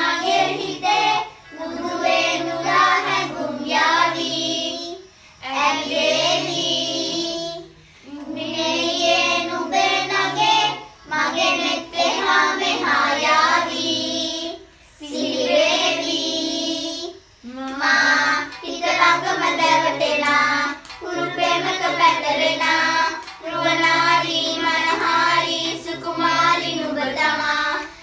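Children singing a song, phrase by phrase with short breaks between the lines.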